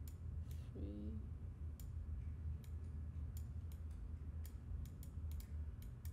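Scattered sharp computer mouse clicks, about a dozen, spread unevenly over a steady low background hum.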